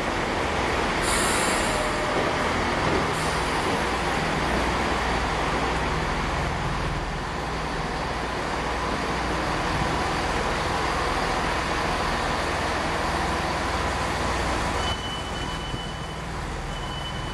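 A Chiltern Railways Class 165 diesel multiple unit passing slowly at close range, its underfloor diesel engines running with a steady drone over wheel and rail noise. There are short air hisses about one and three seconds in. Near the end the rumble eases and a short high beep repeats every second or so.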